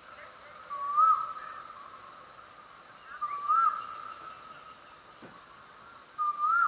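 A whistle-like call repeated three times, about two and a half seconds apart: each is a short upward lilt followed by a held note that trails off.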